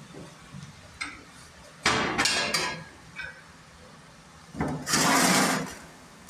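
Pots and pans scraping and clattering: a rasping scrape about two seconds in, then a louder, longer one about five seconds in, with a few light clinks between.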